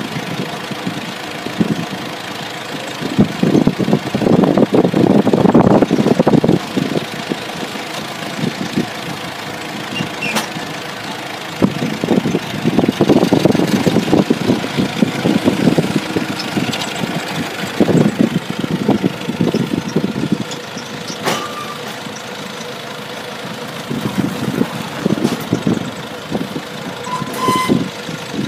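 Forklift engine running at idle, revving up in repeated bursts of several seconds each while pallets are handled.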